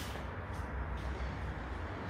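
Soft footsteps, a light tap every half second or so, over a steady low rumble.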